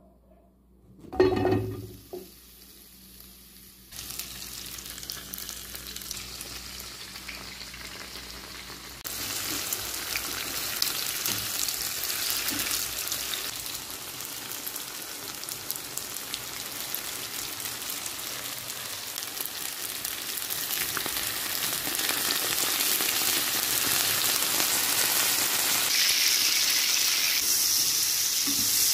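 A single knock about a second in, then tofu cubes, onion and egg frying in oil in a nonstick pan, stirred with a spatula. The sizzle starts about four seconds in, grows louder about nine seconds in and stays loud.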